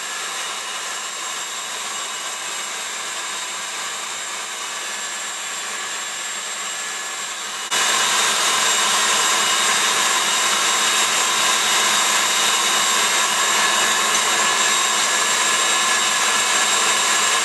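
KitchenAid Artisan stand mixer running with its whisk attachment, whipping egg whites and hot sugar syrup into meringue: a steady motor whine with the whisk churning in the steel bowl. About halfway through it becomes suddenly louder and stays so.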